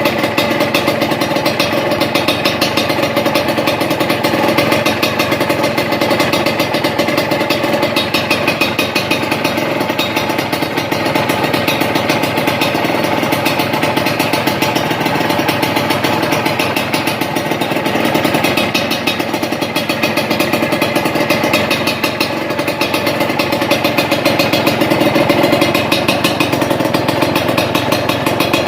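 Suzuki TS125 two-stroke single-cylinder engine running through a Triton RS-5 aftermarket exhaust, mostly steady at low revs with a few slight swells in level, loudest near the end.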